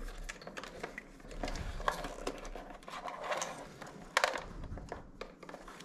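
Faint rustling and light clicks of thin electrical wires being handled against an outboard motor's housing, with one sharper click about four seconds in.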